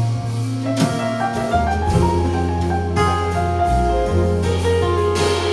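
Live folk-pop band playing an instrumental passage with no singing: fiddle, electric piano, acoustic guitars, double bass and drums. Held deep bass notes change about every second under a stepping melody, with light drum strokes.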